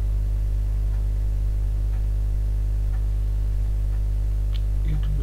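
Steady low electrical mains hum with a buzzy edge, unchanging throughout, with a few faint clicks over it near the end.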